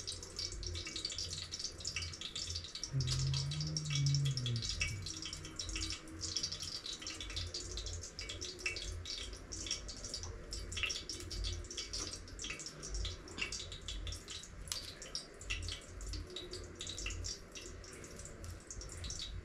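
Pots cooking on a gas stove: a steady hiss with many small crackles and ticks. A brief low hum rises and falls about three seconds in.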